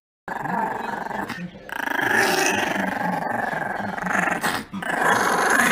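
Small white fluffy dog growling in one long, rough, continuous growl, with a few short breaks for breath.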